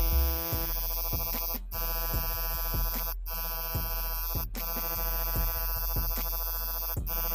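Coil tattoo machine buzzing steadily while lining a tattoo, with electronic music and a drum beat playing along. The sound drops out briefly four times.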